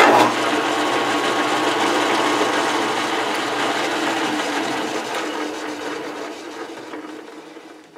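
Metal lathe running, its spindle turning the workpiece while a boring bar takes a spring pass inside the bore with no added depth of cut. The steady running sound dies away gradually over the last few seconds as the lathe winds down.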